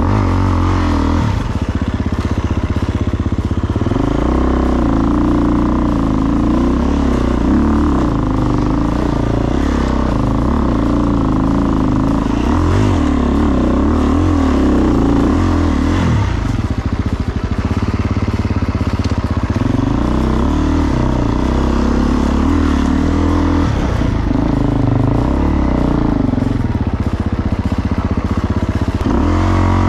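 A motor vehicle's engine running continuously, its pitch rising and falling as the speed changes.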